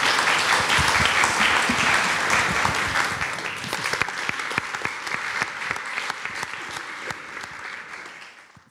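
Audience applauding, a dense patter of clapping that is strongest at first, then gradually thins and fades away near the end.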